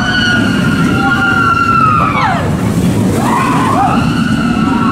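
Roller coaster riders screaming over the steady rumble of the steel coaster train on its track: one long scream that rises, holds about two seconds and falls away, then a second scream starting about three seconds in.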